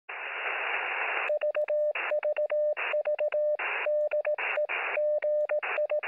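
Radio static hiss for about a second, then a Morse code (CW) tone keyed on and off in quick dots and dashes, with short bursts of static between the groups, heard through a radio receiver.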